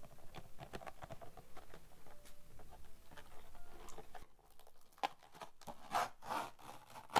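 Close-miked handling of a clear plastic gift box filled with roses: quick taps and clicks on the plastic, then louder crinkling and rustling in the second half as the organza ribbon is pulled loose, ending on a sharp click.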